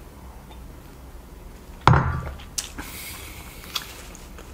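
A ceramic mug set down hard on a wooden table: one sharp knock about two seconds in, followed by a couple of faint clicks.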